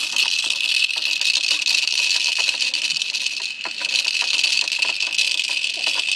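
Beads rattling inside the clear spinning roller on a baby's activity-center tray as it is spun rapidly by hand: a continuous fast rattle made of many small clicks.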